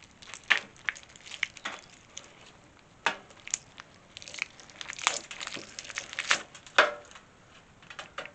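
Wax cappings being cut off a frame of capped honeycomb, giving an irregular run of crackles and scrapes, busiest in the middle of the stretch. The cut cappings drop onto a perforated stainless-steel pan.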